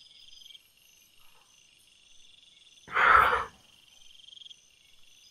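Crickets and other night insects chirping steadily, with one short thump about three seconds in.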